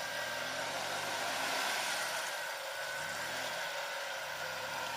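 Engine of an SUV stuck in the brush, running steadily while a tow rope is tensioned for recovery.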